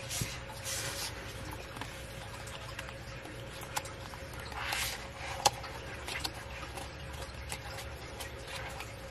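Pages of a glossy album photo book being opened and turned by hand: soft paper swishes and rustles with scattered light taps and clicks, one longer swish a little before the middle followed by a sharp tap. A faint steady hum runs underneath.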